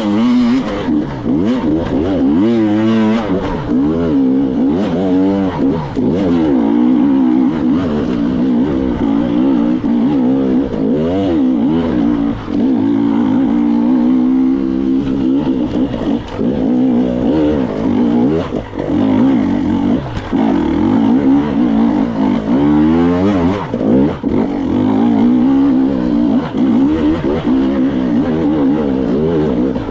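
Two-stroke enduro motorcycle engine being revved up and down again and again, the throttle opened and closed in short bursts, with a few short knocks in between.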